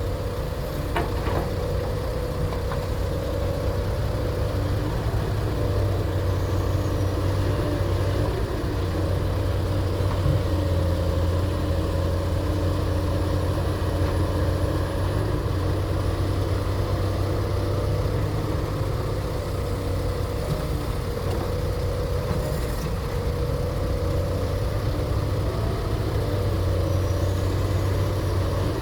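Excavator's diesel engine running at a steady speed.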